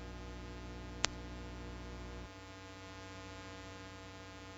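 Steady electrical hum with a buzzy edge, and one sharp click about a second in. The low part of the hum drops away a little just after two seconds.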